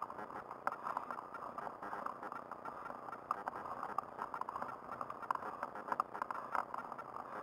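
Racing handbike rolling over rough asphalt under hand-cranking: an uneven rattle and clicking from the bike and its camera mount over a steady road hiss.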